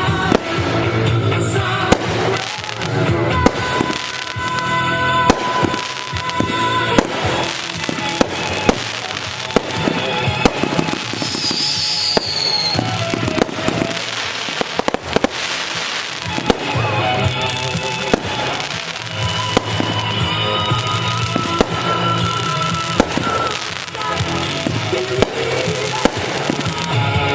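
Display fireworks going off throughout, many sharp bangs and pops in quick succession, over music playing at the same time. A short rising whistle is heard about halfway through.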